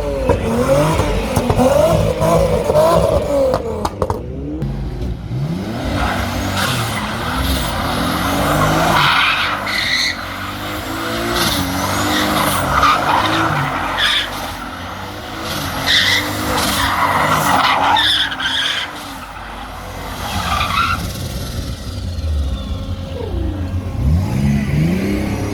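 Car engine revving up and down, then a long tyre screech from about six seconds in to about twenty-one seconds, with the engine revs rising and falling beneath it; engine revving again near the end.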